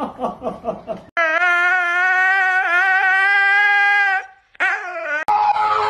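Siberian husky howling: one long, steady call of about three seconds, then a shorter second call.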